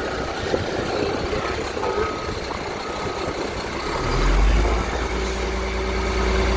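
Garbage truck's diesel engine running, with a backup alarm beeping about once a second. About four seconds in, a louder, deeper steady hum comes in.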